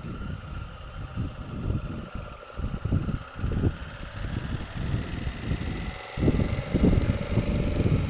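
Honda Africa Twin CRF1000L's parallel-twin engine running as the motorcycle rides at low speed, its note rising a little toward the end. Gusty wind noise buffets the microphone.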